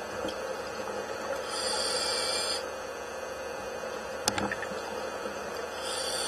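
Scuba diver breathing through a regulator underwater: a hissing inhale about a second and a half in and another near the end, over a steady hum, with one sharp click about four seconds in.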